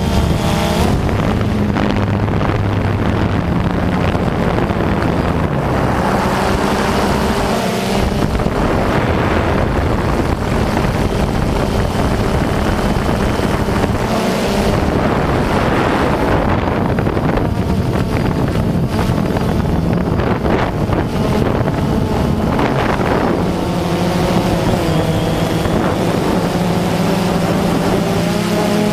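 Small camera drone's electric motors and propellers running continuously, a steady whine whose pitch shifts now and then as it manoeuvres, with wind buffeting the microphone.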